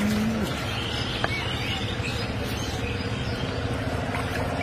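Steady outdoor background noise with faint bird chirps.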